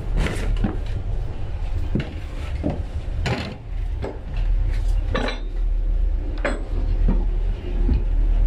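Irregular knocks and clinks of someone moving through a fibreglass lifeboat cabin, feet and hands striking the hull, benches and fittings, over a steady low rumble.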